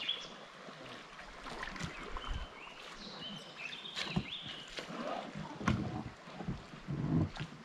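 Water splashing and knocks of a paddle and gear around an inflatable packraft on a small shallow river, with scattered sudden knocks. A few short high chirps, like a bird calling, come about three seconds in.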